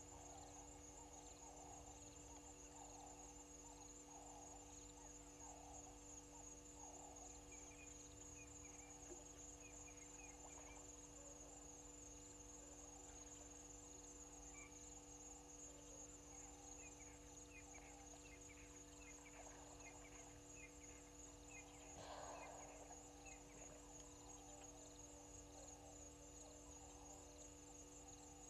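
Faint chorus of insects, a steady high trill, with scattered chirps and a low steady electrical hum underneath.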